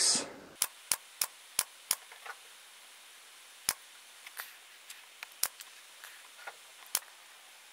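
Central Pneumatic 23-gauge pin nailer running on a 12-gram CO2 cartridge, firing sharp snaps. Five shots come in quick succession, then three more a couple of seconds apart, with fainter ticks between. These are shots late in the cartridge, with its pressure falling.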